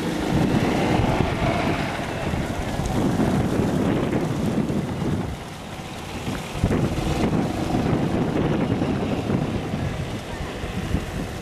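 Wind buffeting the camera microphone: a low, gusting rushing noise that eases briefly about five and a half seconds in.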